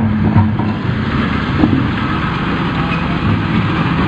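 Diesel engine of a crawler bulldozer running steadily.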